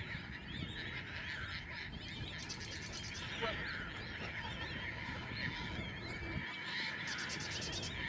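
Marsh ambience: many birds calling and chattering at once, with a rapid buzzy trill about two and a half seconds in and again near the end, over a low steady rumble.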